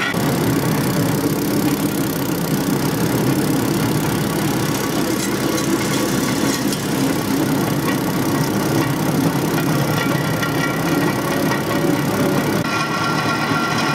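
Motorized rail cart running along the track: a steady engine noise mixed with the rumble of its wheels on the rails.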